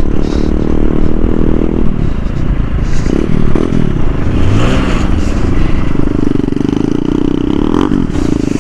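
Small 100 cc single-cylinder motorcycle engine running as it is ridden. Its note is steady at first, wavers up and down between about two and six seconds in as the throttle changes, then settles steady again.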